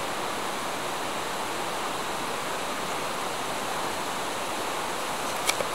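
A steady, even rushing hiss, like running water, with a single sharp click near the end.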